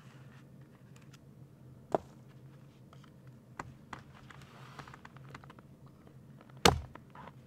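Hatchet chopping into small sticks of wood: a sharp strike about two seconds in and a heavier one near the end, with a few light knocks of wood between.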